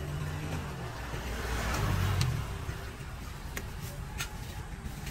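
A road vehicle passing close by: a low engine-and-tyre rumble that swells to a peak about two seconds in and then eases off. A few light clicks come in the second half.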